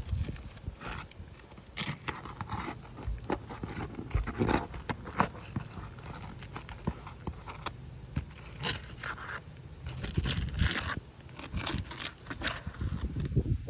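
Irregular scraping, rubbing and clicking of something being handled and worked on by hand.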